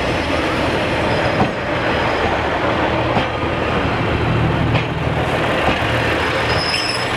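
Class 143 Pacer diesel railbus running past at low speed, its underfloor diesel engines droning steadily. A few sharp wheel knocks come about every second and a half.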